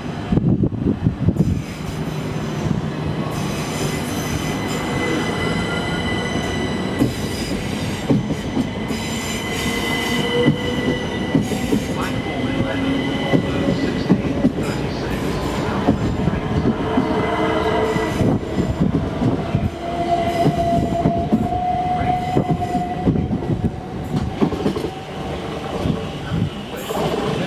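Southern Class 377 Electrostar electric multiple unit passing close by on the platform road. Its traction motors whine in several tones that slowly rise in pitch as it gathers speed, over a steady rumble of wheels on rail.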